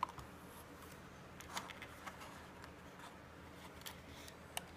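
Faint handling noise: a hand moving a leather pouch clamped with wooden clothespins, giving a few soft, scattered clicks and rubs over a low room hum.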